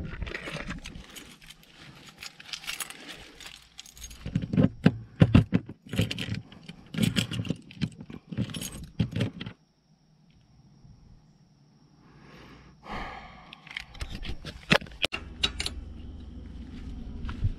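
A ring of keys jangling, with metal clicks from a key turning in a travel trailer's compartment lock. After a pause of a couple of seconds, more jangling and clicking as a chain and padlock are handled.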